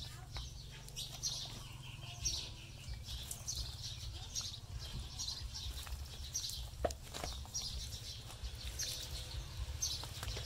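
Small birds chirping, short high chirps repeating about once or twice a second, over a steady low rumble. A single sharp click about seven seconds in.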